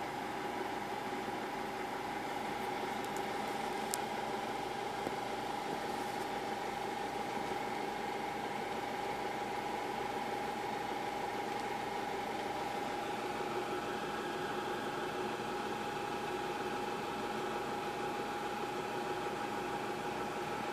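Steady mechanical hum with a constant mid-high tone over a light hiss, unchanging throughout.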